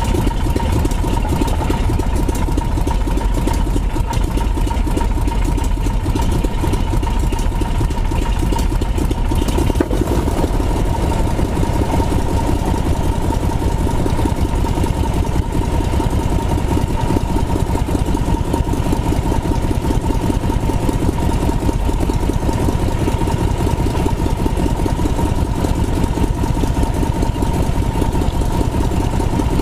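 Piston engine of a Spirit of St. Louis replica aircraft running steadily, heard from inside the cockpit, with a steady high tone over it.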